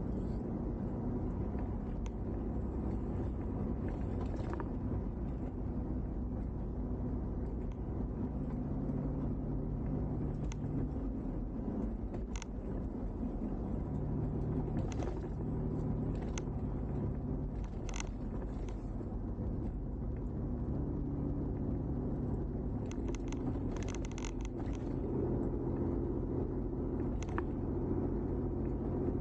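Car driving on a winding mountain road, heard from inside as a steady engine and tyre rumble. The engine note steps up and down through the stretch, with scattered light clicks and ticks.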